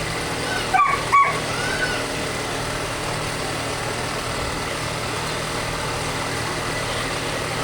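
A dog barks twice in quick succession about a second in, over a steady background noise like a running engine or traffic.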